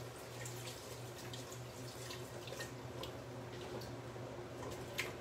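Stock being poured into a hot soup pot and stirred in, splashing and dripping, with light clicks of the spoon against the pot and one sharper clink near the end. A steady low hum runs underneath.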